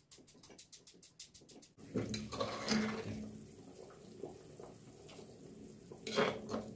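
A stone pestle tapping rapidly in a stone mortar, pounding chili paste. About two seconds in, this gives way to a pot of broth simmering, while a metal spoon scrapes paste out of the stone mortar, with louder scrapes near the start of that part and again near the end.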